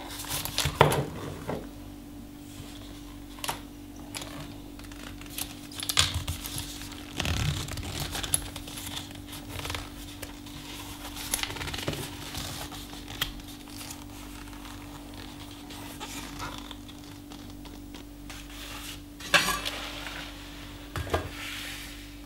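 Handling of a stitched leather knife sheath: leather rubbing and rustling, with scattered clicks and knocks, the loudest about a second in and near the end, over a steady low hum.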